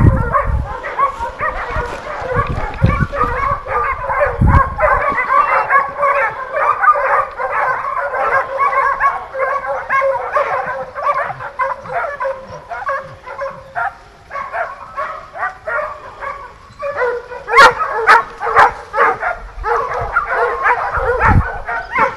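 A pack of hunting dogs baying and yelping on the trail of wild boar, many voices overlapping without a break. A burst of louder, sharper barks comes about seventeen seconds in.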